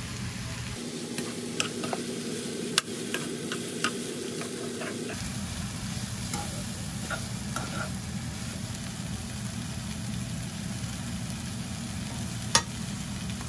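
Julienned bellflower root sizzling in oil in a frying pan while a metal spoon stirs it, the spoon clinking against the pan several times in the first few seconds and once sharply near the end.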